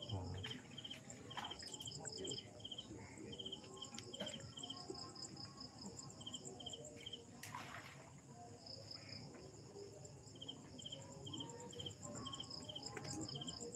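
Crickets chirping: a steady, rapid high trill, with short chirps repeating about twice a second that pause for a few seconds in the middle. A single brief sharp noise comes about seven and a half seconds in.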